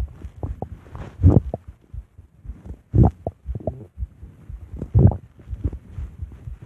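Stomach growling: three louder gurgling rumbles about two seconds apart, with small gurgles and pops between them.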